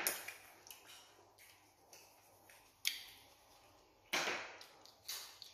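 A few sharp clicks and short scrapes, the longest scrape about four seconds in.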